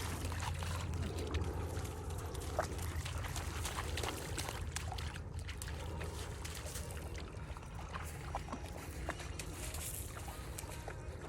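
Shallow water trickling and lapping, with scattered small splashes and ticks over a steady low rumble.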